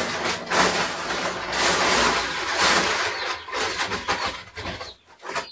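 Compound grower feed for broilers pouring out of a plastic sack into a plastic barrel: a steady rushing hiss that thins out and stops about five seconds in as the sack empties.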